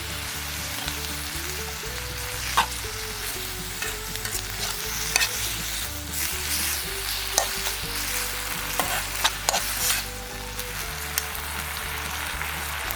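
Corn and minced pork sizzling as they are stir-fried in a pan, with a steady hiss and a metal spatula clinking against the pan several times.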